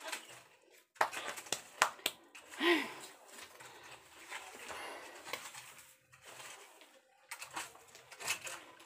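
Hoe chopping and scraping into packed dirt and rubble, several sharp knocks in a cluster about a second in and again near the end, with a short effortful grunt about three seconds in.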